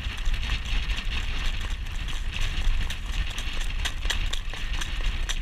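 Hoofbeats of a harness-racing horse clip-clopping on the track while it pulls a training cart, heard as a run of sharp clicks over a steady low rumble of wind and cart movement.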